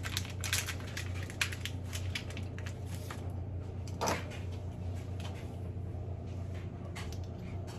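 Small clicks and taps of metal parts being handled as a starting shaft is fitted onto the back of a small nitro RC engine, a quick run of clicks at first and one louder knock about four seconds in, over a steady low hum.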